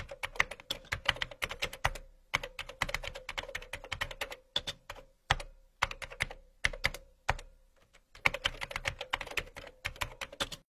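Typing sound effect: quick runs of keyboard keystroke clicks with brief pauses between them, under a faint steady hum.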